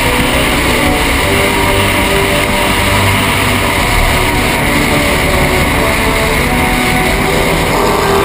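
Racing powerboat's engine running flat out, heard from on board over the rush of water and wind against the hull.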